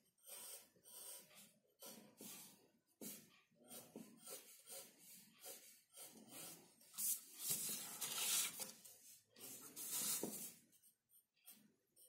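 Pencil scratching on paper in short, uneven strokes while an outline is sketched, with a longer, louder stretch of scratching about seven to eight seconds in.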